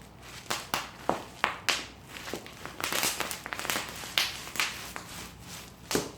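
Bubble wrap being crushed, popping in irregular sharp snaps with crinkling between them, the pops coming thickest around the middle.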